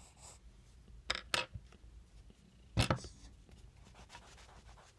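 Pencil sketching on paper: a few short scratchy strokes, the loudest about three seconds in.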